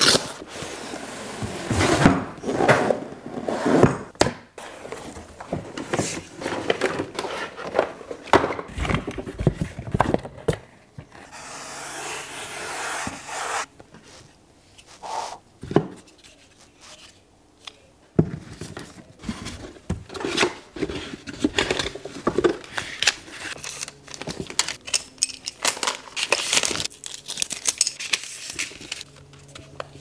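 Cardboard and plastic packaging being handled while a hair dryer is unboxed: box flaps pulled open and scraping, then the dryer and its attachments lifted out of a carry case. Irregular rustling, crinkling and scattered knocks, with a quieter stretch in the middle.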